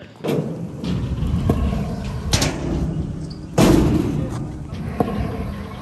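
Stunt scooter wheels rumbling over skatepark ramps and concrete, with several sharp knocks and thuds of the scooter striking and landing on the ramps; the loudest, about three and a half seconds in, lasts about half a second.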